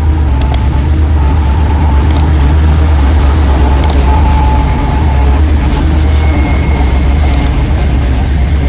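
A heavy engine running steadily: a loud, even low rumble, with a few short sharp clicks over it.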